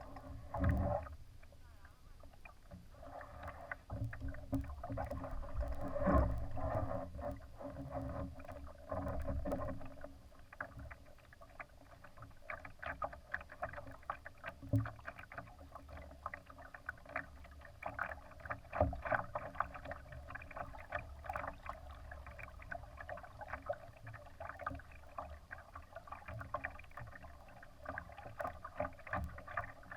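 Water splashing and slapping against the hull of a Laser sailing dinghy under way: dense, irregular splashes over a steady low rumble.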